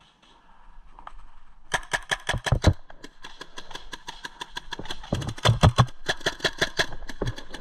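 Paintball markers firing in rapid strings of sharp pops, several a second, starting a little under two seconds in; the nearest, loudest shots land around two and a half and five and a half seconds in.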